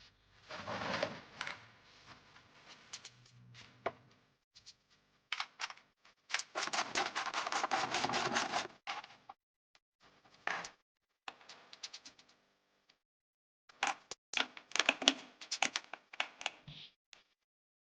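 Bursts of rapid clicking and clattering with scattered knocks, the longest run lasting about two seconds near the middle; mechanical handling noise.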